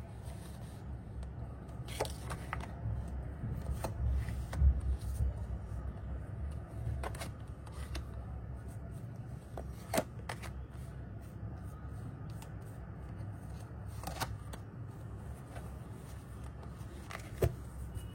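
Tarot cards being drawn from the deck and laid out: scattered soft clicks and taps of card handling, the sharpest about ten seconds in, over a low steady hum.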